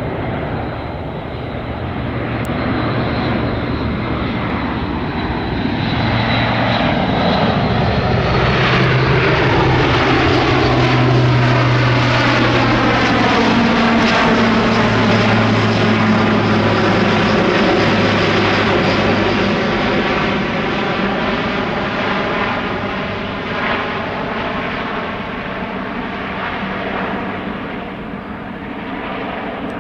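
Airbus A400M's four turboprop engines with eight-bladed propellers as the aircraft flies low overhead: a deep propeller drone with a faint high whine at first, building to its loudest in the middle and easing off as it moves away.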